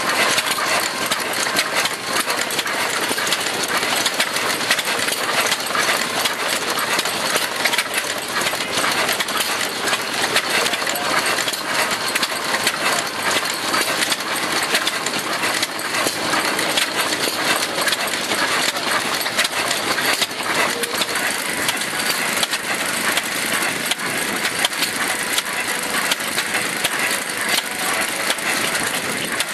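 Vintage stationary engine running, with a steady, dense mechanical clatter of clicks and knocks.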